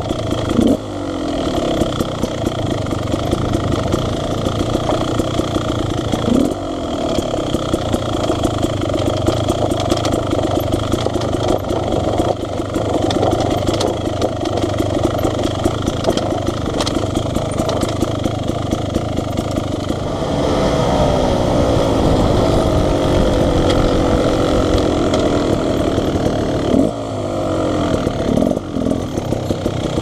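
2019 Beta Xtrainer two-stroke dirt bike engine running under way, its note rising and falling with the throttle. Quick rev blips come about a second in and again about six seconds in, and from about twenty seconds in the pitch falls steadily as the bike slows, with one more blip near the end.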